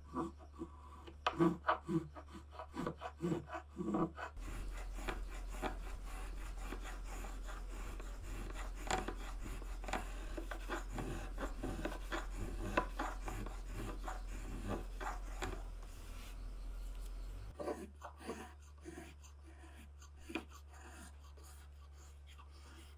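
Small Japanese shihō-zori plane, curved in both directions, shaving a wooden rice-scoop blank in short strokes, each a brief dry scrape of blade on wood. At first the strokes come about two a second. From about four seconds in they run denser over a steady low hum, and they thin out to a few fainter strokes near the end.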